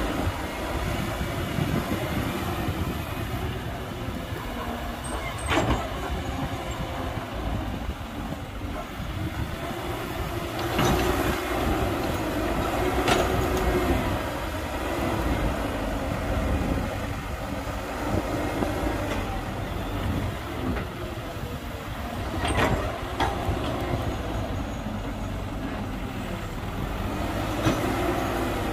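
Caterpillar E120B excavator working, its diesel engine running steadily under load, with three sharp clanks spread through the stretch.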